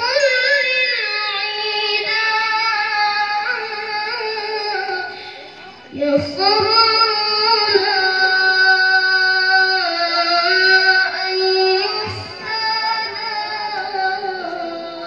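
A boy's high, soft voice reciting the Qur'an in melodic tilawah style over a PA, holding long ornamented notes that bend in pitch, with new phrases starting about six and twelve seconds in.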